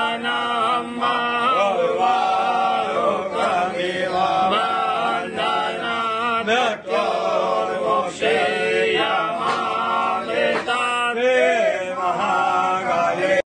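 Male voices singing a Hindu devotional chant to Shiva. It cuts off suddenly near the end.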